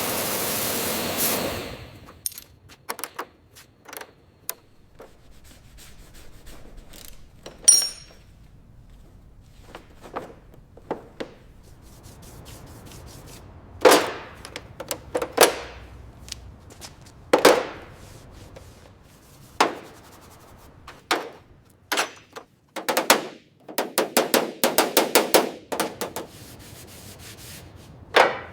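Intermittent hand work on a car body: a short burst of noise at the start, then scattered knocks and clicks, several scraping strokes, and a quick run of repeated rubbing strokes near the end, as rust and grime are worked off.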